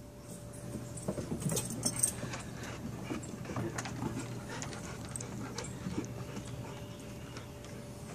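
Footsteps and puppies' paws tapping irregularly on a wooden deck, loudest about one to two seconds in, over a faint steady hum.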